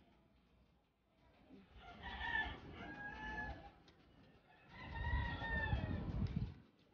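A rooster crowing twice, each crow lasting about a second and a half, the second one near the end under a low rumble.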